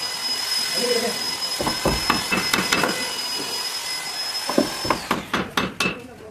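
Hammer striking a steel chisel, a series of sharp knocks that come in a quicker run near the end.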